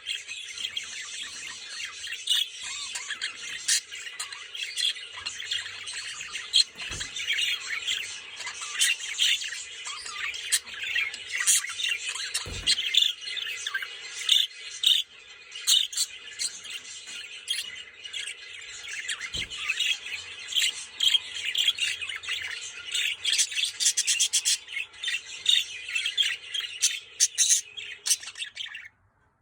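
Budgies chattering and warbling without a break, dense busy twittering with sharp squawks mixed in. It cuts off suddenly near the end.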